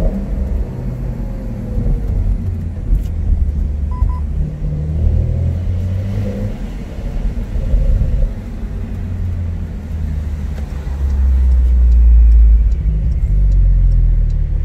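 Porsche 911 (992) flat-six engine and sports exhaust running at low revs while driving slowly, heard from inside the cabin through a smartphone's built-in microphone. The low rumble swells louder about eleven seconds in.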